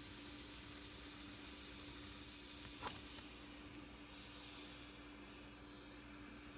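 Butane soldering iron hissing steadily while its hot tip is drawn through foam board, the hiss growing louder about three seconds in.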